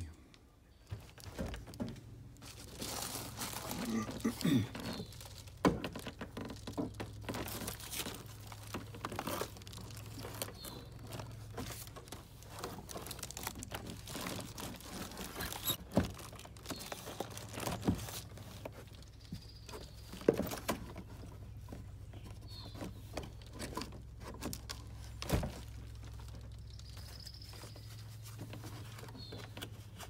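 Insulated portable air-conditioner exhaust hose, wrapped in foil and bubble wrap, crinkling and rustling as it is handled and fitted into place, with scattered knocks and taps. A low steady hum runs underneath.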